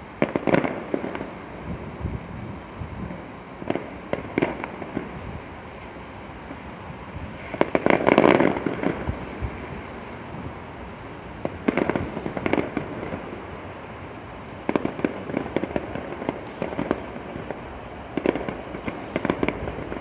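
Distant fireworks display: clusters of bangs and crackles every few seconds, the loudest and longest cluster about eight seconds in.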